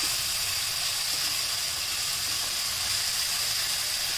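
Chopped vegetables frying in oil in a non-stick pan, sizzling steadily while a wooden spatula stirs them. They are cooking in oil alone, with no water added.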